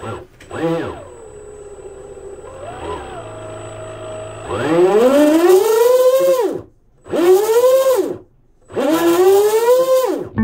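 Rocket 2868 4000kV brushless motor in a Pro Boat Blackjack 24 being throttled on the bench, out of the water. It gives a short rise and fall and a steady hum, then three long blips that each climb in pitch and fall away, with brief pauses between the last three.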